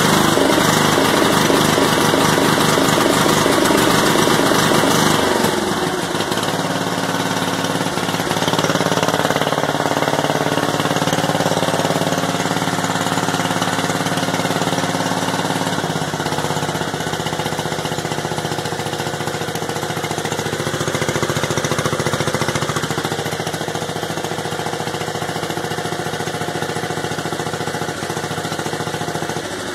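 1975 Gilson Hydro-16 garden tractor engine running steadily, a little rough and vibrating, not yet fully warmed up on old, stale gas. About six seconds in, the engine note changes and drops slightly in level, then it settles into a steady idle.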